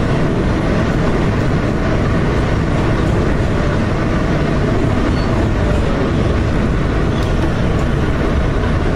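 R160B Siemens subway car running along the track: a loud, steady rumble of wheels on rails and the car's running gear.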